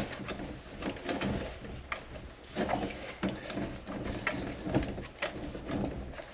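A wrench working a seized, rusted broken stud back and forth in a steel frame, making irregular metallic clicks and scrapes about one or two a second.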